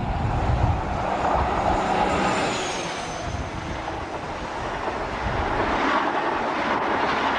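InterCity HST (High Speed Train) passing: diesel power car engine noise and the rush of coaches running over the track, with a faint high whistle that falls in pitch about three seconds in.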